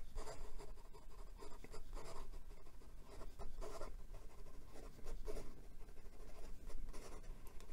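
Glass dip pen nib scratching across notebook paper in quick, irregular strokes as the same word is written over and over at speed.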